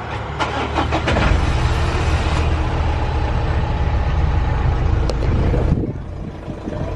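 Renault Master van's diesel engine being cranked by the starter and catching about a second in, then running steadily.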